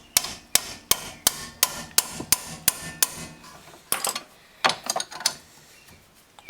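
Hand ratchet wrench clicking as the brake bolts are snugged up: a steady run of sharp clicks, about three a second, then two short flurries of clicks about four and five seconds in.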